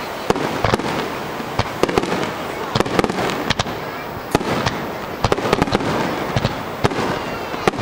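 Fireworks display: aerial shells bursting in a fast, irregular run of sharp bangs, several a second, over a constant rumble and crackle.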